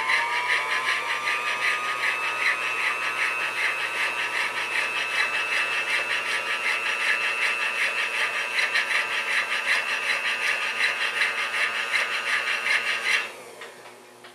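Belt-driven 8 mm watchmaker's lathe and pivot-polishing attachment, its electric motor spinning up at the start and then running at a steady whine with a fast, even ticking as clock pivots are polished. The motor cuts off about a second before the end.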